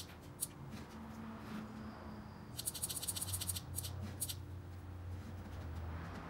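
Rapid runs of small clicks, about ten a second, from the push button on a CT22 motorcycle display being tapped repeatedly to step a voltage setting; a single click comes about half a second in, and two quick runs come a little past the middle.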